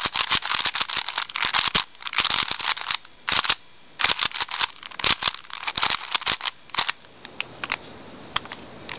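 Plastic 3x3 puzzle cube turned fast in the hand: a rapid, irregular run of clicks and clacks as the layers snap round, thinning to a few scattered clicks near the end.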